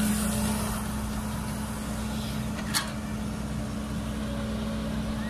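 Caterpillar tracked excavator's diesel engine running with a steady drone as it digs, with one sharp knock almost three seconds in.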